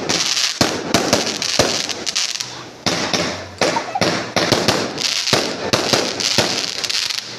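Aerial fireworks bursting in rapid succession: a dense string of sharp bangs over a continuous crackling hiss.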